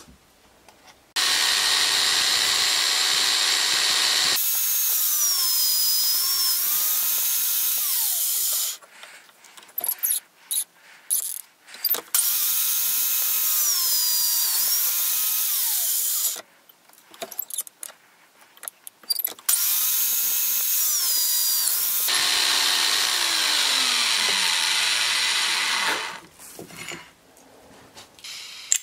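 Drill press boring through a steel knife blank: the bit cuts with a loud, high wavering whine in several runs of a few seconds each, with short pauses of scattered clicks between them. Near the end the pitch falls as the motor winds down.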